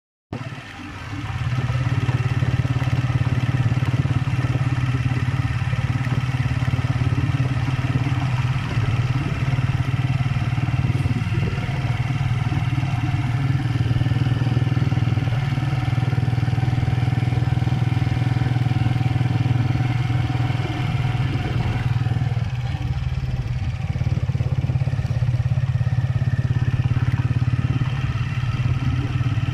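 Motorcycle engine running at a steady speed while riding along a dirt track, a constant low engine drone.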